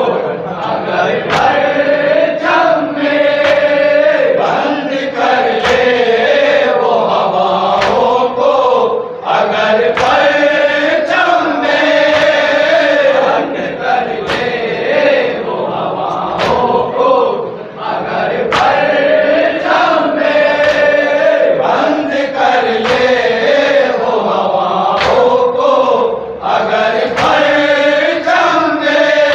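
A group of men chanting an Urdu mourning salam in unison, the melody carried steadily throughout. Sharp slaps of chest-beating (matam) recur every second or so.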